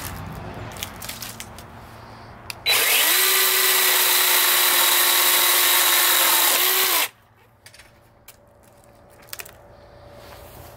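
Skil PWR CORE 20-volt 12-inch brushless cordless chainsaw switched on about three seconds in. Its motor whine rises quickly to a steady pitch while it cuts a small log, then it is released after about four seconds and winds down. A few light handling clicks come before and after.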